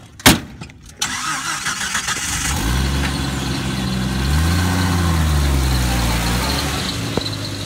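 A sharp slam, then a Jeep's engine is cranked and starts, revs up once and falls back, settling into a steady idle.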